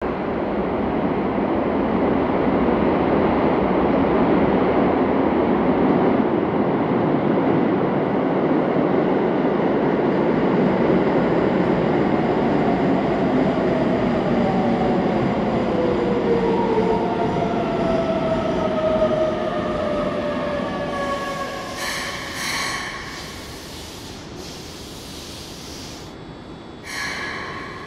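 Keikyu 600 series electric train pulling into an underground station: a loud rumble of wheels and motors, then from about halfway the GTO VVVF inverter gives falling whines as the train brakes. Near the end, once the train has slowed, come several short hisses as it stops.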